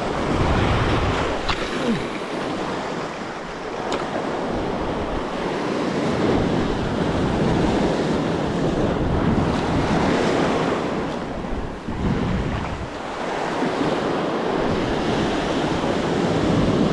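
Sea surf surging over and draining off a rock ledge, swelling and easing off several times, with wind buffeting the microphone.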